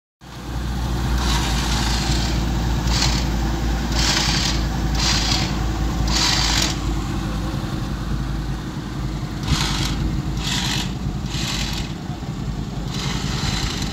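An off-road 4x4 vehicle's engine runs with a steady deep rumble, with short bursts of rushing noise laid over it several times.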